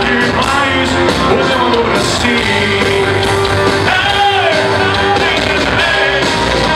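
Live pop-rock band playing with drums and keyboards, a male lead singer singing into a microphone over them.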